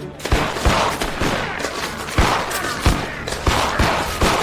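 Gunfight: about ten gunshots in quick, uneven succession over a continuous noisy clatter.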